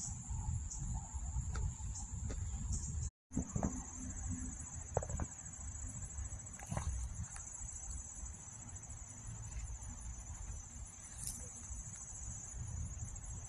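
Steady, high-pitched chorus of insects such as crickets trilling, over low rumble and a few faint clicks. The sound cuts out completely for a moment about three seconds in.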